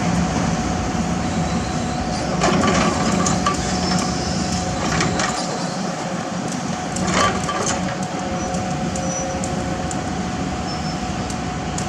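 Heavy diesel equipment running steadily with a constant hum, with a few short metallic clicks and knocks scattered through it.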